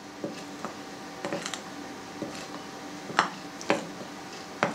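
Metal spoon clinking and scraping against a glass bowl while stirring flour into a yeast starter: irregular light clinks, the loudest about three seconds in.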